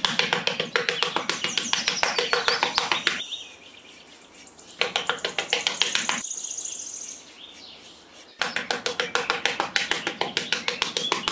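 Small hand trowel scraping and smoothing sand in quick, repeated strokes. It goes in three runs with two short pauses, about three and about seven seconds in.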